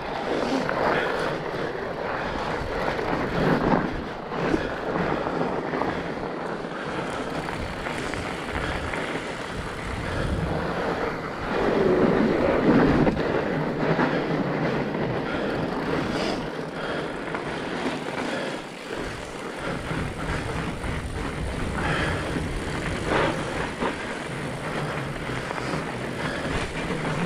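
Fat bike being ridden on a winter trail: a steady rushing noise of tyres and moving air, with scattered knocks and rattles, swelling louder a few times.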